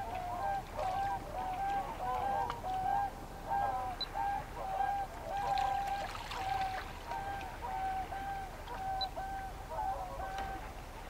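A flock of large waterbirds honking: many short, even-pitched calls that overlap and follow each other almost without a break.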